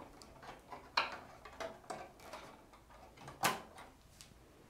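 SAS cable connectors being handled and pushed into the server's drive backplane: a few light plastic clicks and cable rustles, the sharpest about three and a half seconds in.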